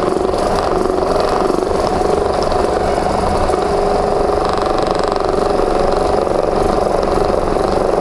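Handheld percussion massage gun running steadily at one even pitch, its head pressed into the muscles of a person's upper back.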